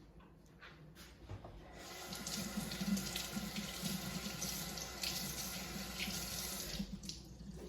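Kitchen tap running into a sink, turned on about two seconds in and shut off suddenly near the end, with a few light clicks before it.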